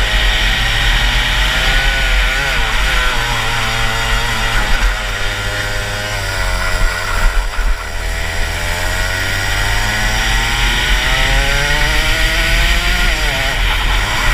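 Rotax Max 125cc single-cylinder two-stroke kart engine at speed, its revs rising and falling again and again through the corners, dropping lowest about seven seconds in before climbing again.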